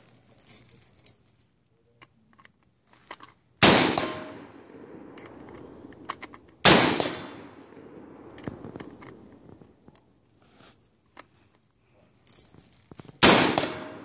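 Three single shots from an AR-15 rifle, each a sharp crack followed by an echo that dies away over about a second; the first comes a few seconds in, the second about three seconds later, and the third near the end.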